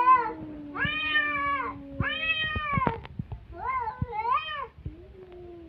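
Two domestic cats in an aggressive standoff, yowling. There are three drawn-out wailing calls of about a second each, over a low held moan that slowly falls, fades out about two and a half seconds in and comes back near the end.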